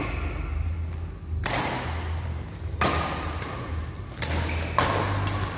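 Badminton rackets striking a shuttlecock in a rally: four sharp hits, the last two close together, each ringing on in the echo of a large hall.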